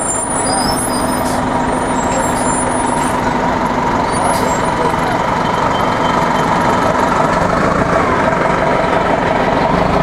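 Loud, steady city street traffic, led by a heavy vehicle's engine running close by with a steady droning hum.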